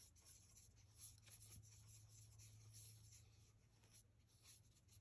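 Faint, irregular scratching of a paintbrush working acrylic paint onto mixed media paper, with a low steady hum underneath.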